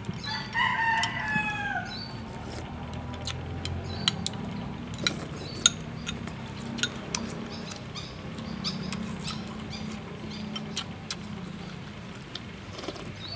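A rooster crows once, a call of about a second and a half that falls in pitch at the end. Metal spoons give many light clinks against a glass bowl and a ceramic bowl.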